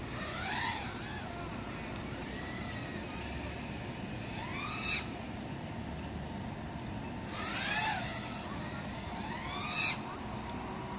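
FPV racing quadcopter's motors whining in bursts of throttle, the pitch sweeping up sharply and cutting off about four times as it flips and rolls, over a steady low background noise.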